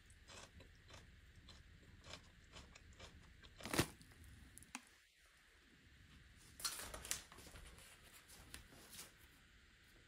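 Faint, scattered crunches and clicks of hands-on kitchen work, with a louder knock about four seconds in and a short run of crunches around seven seconds.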